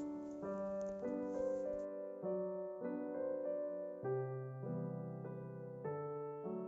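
Background piano music: soft sustained chords that change about once a second.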